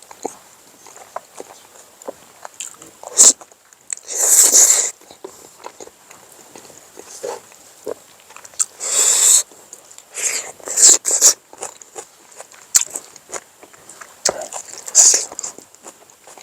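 Someone eating close to the microphone: chewing and smacking, with a few short slurps.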